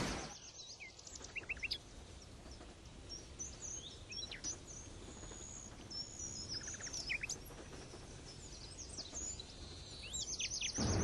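Faint chorus of small birds chirping, with many quick high chirps and short sweeping notes over a low background rumble. A loud noise begins to swell in near the end.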